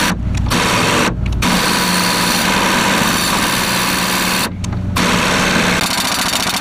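Impact wrench hammering rapidly at a rusted nut on a trailer axle's bolts, in long loud runs broken by three short pauses.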